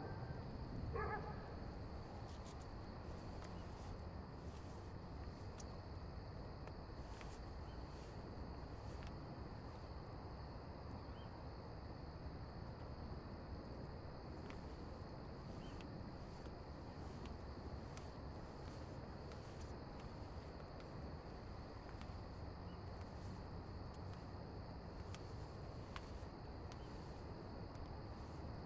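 Faint, steady night ambience of crickets: a thin, even high chirring over a low hiss, with a brief dog whimper about a second in.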